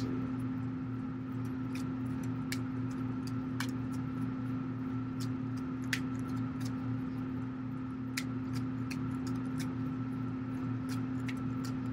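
Tarot cards being shuffled by hand, giving scattered soft clicks and card slaps, over a steady electrical hum.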